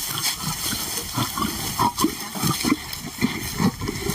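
Lions growling in short, repeated snarls, about two or three a second: aggression over meat as the male guards the food from the lioness.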